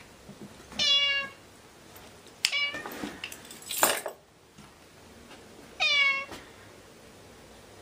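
Ginger tabby cat meowing three times, each meow about half a second long and a few seconds apart. A short harsh noise comes between the second and third meows, about four seconds in.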